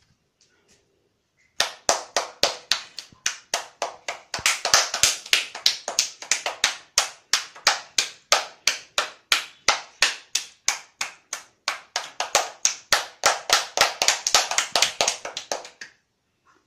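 Hands clapping in a steady rhythm, about three claps a second, starting about a second and a half in and stopping just before the end. The clapping grows fuller at about four seconds, as more hands join.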